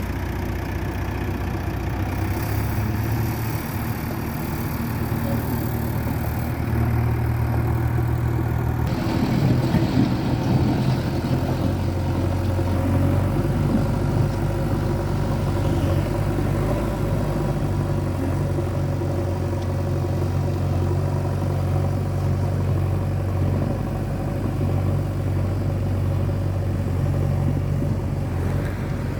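JCB 3DX backhoe loader's diesel engine running steadily. It gets louder and rougher about nine seconds in, as the machine works harder.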